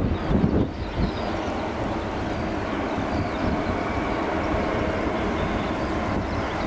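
UPS Boeing 767-300 freighter's GE CF6 turbofan jet engines running steadily as the aircraft rolls out just after touchdown, a continuous roar with a faint whine in it. A few low thumps sound in the first second.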